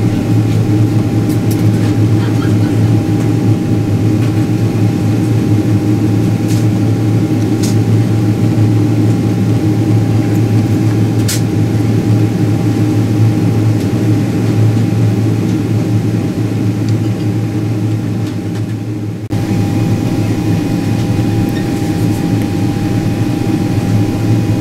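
Boeing 777-200ER cabin noise on descent: the steady drone of the engines and rushing air, heard at a window seat in the forward cabin. It dips briefly about nineteen seconds in, then carries on with a slightly different tone.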